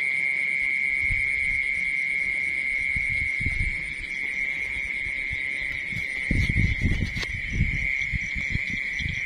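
Field insects trilling in one steady, unbroken high tone, with fainter pulsing chirps above it. A few low thuds and rustles come in from about six seconds in.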